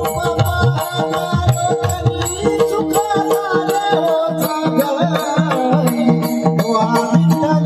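Devotional bhajan music: mridang drum strokes in a steady rhythm under a sustained, sliding melody, with a high percussion beat ticking along.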